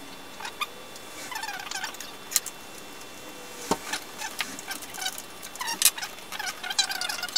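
Loose saw chain of an electric chainsaw clinking and rattling in short bursts of rapid clicks as it is worked around the guide bar by hand. One sharp knock comes about halfway through.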